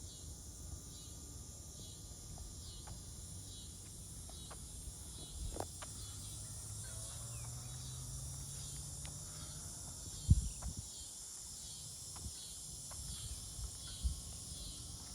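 Insects chirping outdoors in a steady, rhythmic pulse over a high constant hiss. Two sharp thumps stand out, one about ten seconds in and another near the end.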